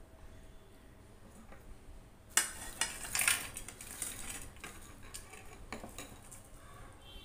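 Fried food pieces being scraped by hand out of a ceramic bowl onto a steel plate, with sharp clattering knocks a couple of seconds in, then softer crackly rustling as fingers push and mix them into rice.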